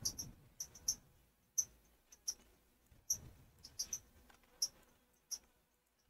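Computer mouse and keyboard clicks: about a dozen sharp, irregularly spaced clicks and ticks from clicking, scrolling and typing, with a few soft low thumps.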